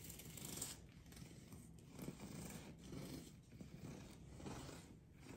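A long knife sawing back and forth through a panettone's sugar-topped crust and soft crumb: faint rasping strokes, about one every half second to a second.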